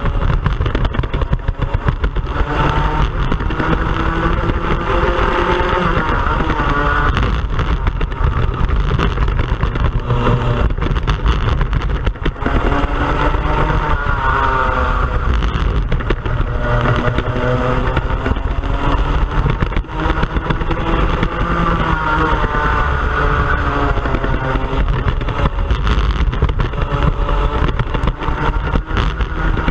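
Onboard sound of a racing kart's engine at full race pace, its pitch climbing on the straights and dropping off into the corners, over and over through a lap.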